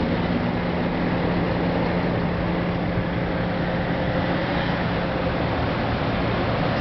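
Steady motor-vehicle noise: an engine running with a constant low hum under an even hiss.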